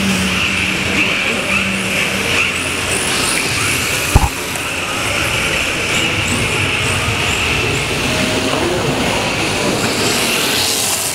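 Electric motor of a 1:10 RC drift car (Yokomo DRB chassis) whining up and down in quick, repeated rises and falls as the throttle is worked through the drift. A single sharp knock about four seconds in.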